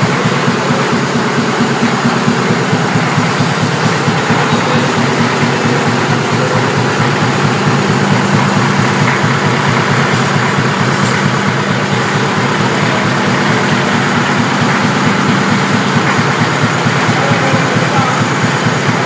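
Engine-driven air compressor running steadily with a rapid, even pulsing beat, charging the foghorn's compressed-air storage tanks.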